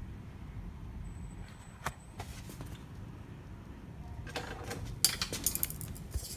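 Plastic clicking and rattling from the opened scanner assembly of an HP Color LaserJet Pro MFP printer as its parts are handled: a single click about two seconds in, then a quick two-second run of clicks and rattles starting about four seconds in.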